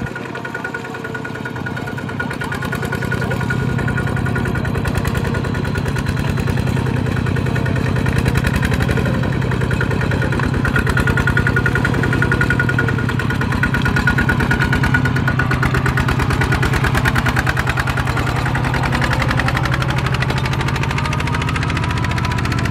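Single-cylinder diesel engine of a two-wheel walking tractor chugging steadily under load as it drags a trailer through deep mud. It gets a little louder over the first few seconds, then holds an even, rapid beat.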